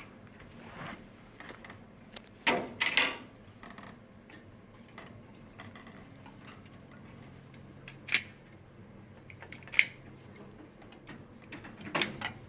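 Hands working cables and tools at a bench: small clicks, taps and rustles as wires are handled and threaded into a tag block. A short cluster of rustling clicks comes a couple of seconds in, followed later by three single sharp clicks spaced a second or two apart.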